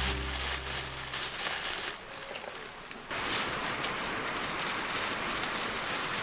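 Meat and garlic sizzling on a hot grill: a steady rain-like hiss that gets suddenly louder about three seconds in. The tail of background music fades out in the first second.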